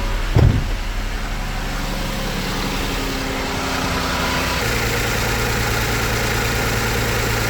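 2008 Mazda CX-9's V6 idling just after being started, misfiring because the cylinder 1 fuel injector is getting no power (open circuit). There is a short thump about half a second in, and the engine note changes about four and a half seconds in.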